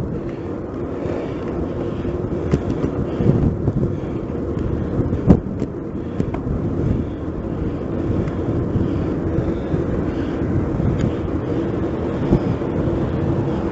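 Steady wind rush and tyre rumble from a Giant Cross City 2 hybrid bike being ridden on a road bike lane, picked up by a bike-mounted camera, with a few sharp clicks or knocks from bumps, the loudest about five seconds in.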